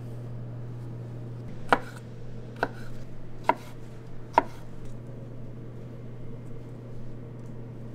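Kitchen knife chopping on a cutting board: four sharp, evenly spaced strikes, under a steady low hum.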